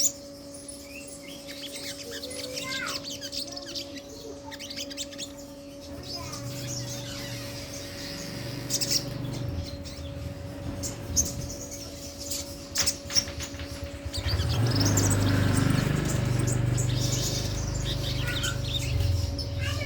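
Little spiderhunter (sogon) calling in quick, high chirps and short trills, over a steady low hum. About two-thirds of the way through, a louder low rumble comes in under the calls and carries on to the end.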